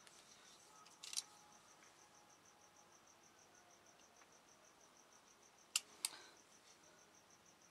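Near silence with a craft knife cutting decal paper on a board: short sharp clicks about a second in and twice close together near the end, over a faint high-pitched pulsing tone.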